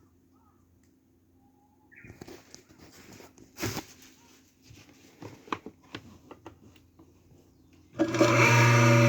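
A few scattered clicks and knocks, then about 8 s in a Kawamoto N3-206SHN well pump's electric motor switches on with a loud, steady, many-toned hum. The seller lists the pump as making an abnormal noise when the motor runs.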